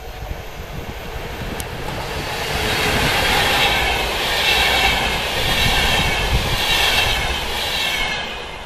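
Finnish VR InterCity train, an electric locomotive hauling double-deck coaches, passing at speed: wheels running on the rails in a steady rush that swells to its loudest through the middle and fades near the end as the last coaches go by.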